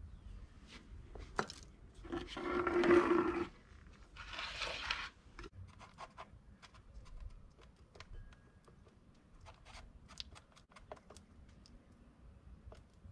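Two harsh scrapes in the first five seconds, the first with a steady squeal under it, then light clicks and taps as a wooden stick mixes two-part epoxy paste on a board.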